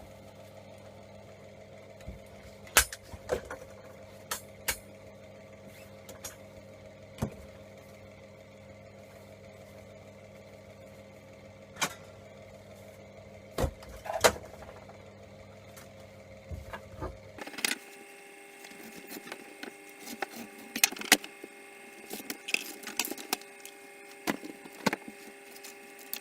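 Scattered clicks and knocks of hand tools and metal and plastic parts as a scrap MIG welding torch is taken apart by hand, over a steady electrical hum. About two-thirds of the way in, the hum changes suddenly and the clicks come more often.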